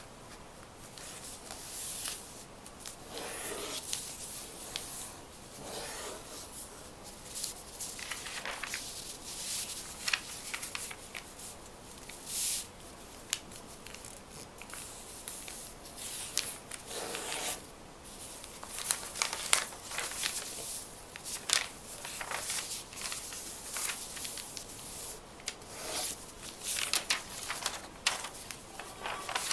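Paper being handled and creased by hand, with irregular rustles and sharp crinkles.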